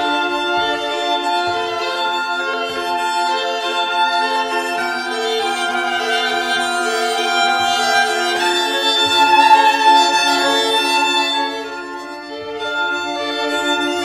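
String quartet of two violins, viola and cello playing: held notes above a repeating figure of short bowed notes in the lower voices. The music swells about nine seconds in, drops briefly near the end, then builds again.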